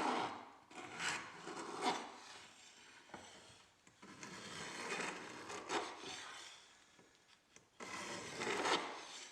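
Scratchy rubbing strokes of a hand tool drawn across a steel knife billet, several uneven passes, while the bevel center lines are being marked out.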